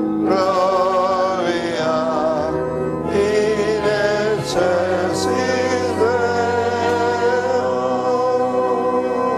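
Voices singing slow liturgical chant during Mass, long held notes with vibrato, over sustained keyboard chords; the music stops right at the end.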